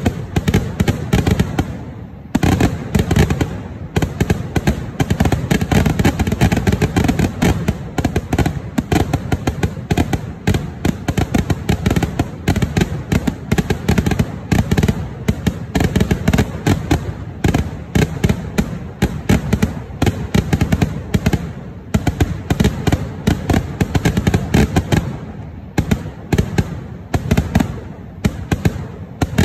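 Vedikettu fireworks barrage: a dense, rapid string of firecracker bangs and aerial shell bursts that runs almost without pause. It eases briefly about two seconds in and thins out for a moment near the end.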